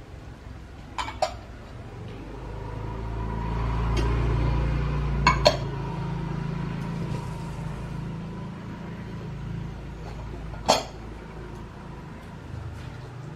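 Dishes clinking against stainless steel plates and a bowl: two sharp clinks about a second in, two more after five seconds, and one near the end. Under them a low rumble swells for a few seconds and fades.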